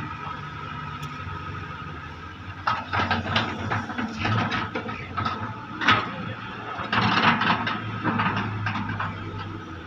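Heavy excavator's diesel engine running steadily, with a stretch of loud, irregular clattering and scraping from about three seconds in until near the end as the machine works.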